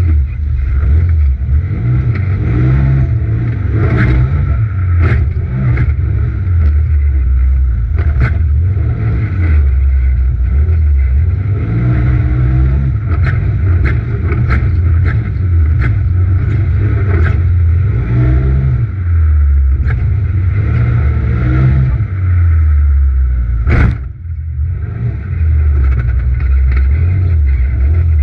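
Polaris RZR XP Turbo side-by-side's turbocharged engine heard from inside the cab, revving up and down under race throttle. Scattered sharp clicks run through it, and a sharp knock near the end is followed by a brief dip in the engine.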